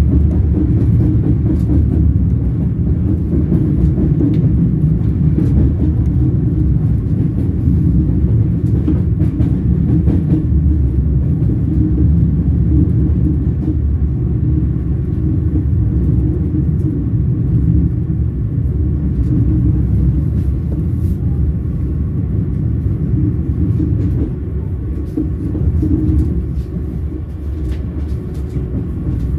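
Train wheels rolling on the rails: a steady low rumble with faint clicks now and then, easing off slightly near the end.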